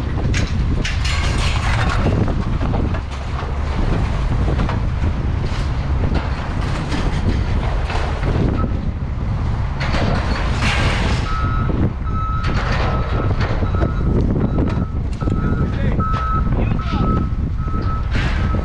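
Heavy vehicle engine rumbling with scattered knocks and bangs; about two-thirds of the way in, a reversing alarm starts beeping over and over.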